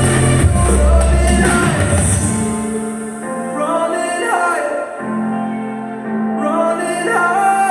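Music playing on an F&D F550x 2.1 speaker system during a sound test. A bass-heavy beat with strong low thumps gives way, about two and a half seconds in, to a song with a singing voice over a held low bass note.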